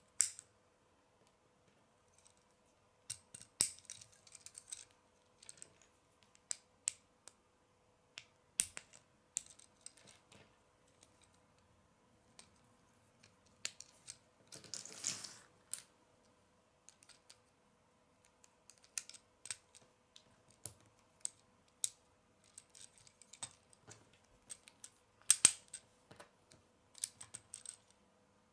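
Lego pieces being assembled by hand: plastic bricks, plates and axle pins clicking, snapping and clattering together in irregular short clicks. About halfway through there is a longer rustle of about a second and a half.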